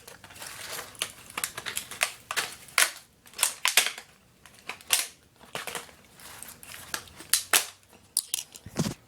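Irregular sharp clicks and cracks of hard plastic as a laptop's small underside cover panel is pried open, some snaps coming in quick clusters.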